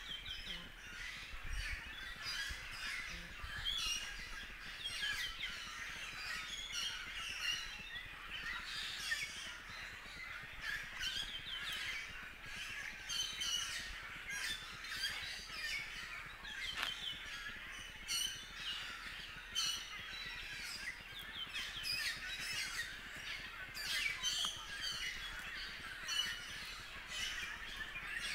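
A continuous chorus of many birds chirping and calling, short high calls overlapping one another without a break.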